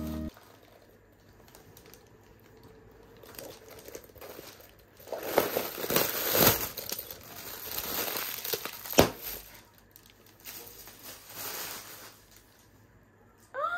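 Plastic packaging bags crinkling and rustling as a new handbag is unwrapped and handled, loudest in the middle, with one sharp click about nine seconds in.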